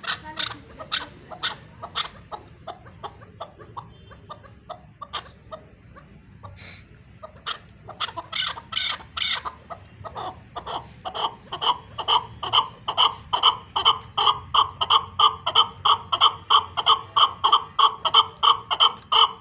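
Chukar partridge calling: a string of short, sharp clucking notes, scattered at first, then from about halfway in a fast, even run of about three calls a second, the chukar's rally call.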